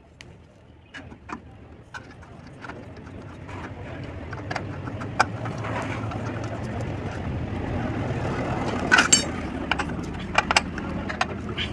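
Sharp metal clicks of a screwdriver working the steel screws of an aluminium door hinge, scattered through, with a cluster near the end. Behind them, a steady low rumble grows louder over several seconds.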